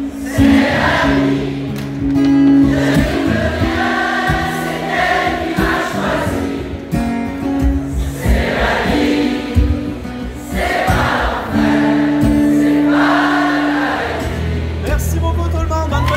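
Acoustic guitar strumming chords while a crowd sings along in chorus, the refrain repeated by the audience with the singer.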